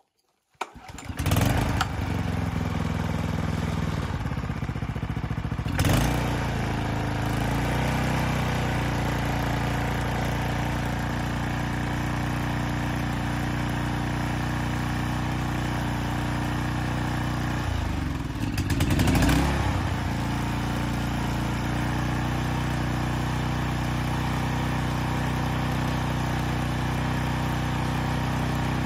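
Wing mower's small engine catching on a recoil-start pull, in its first run after a carburettor overhaul, then running steadily. Its speed rises briefly about six seconds in, and about eighteen seconds in it sags and picks up again.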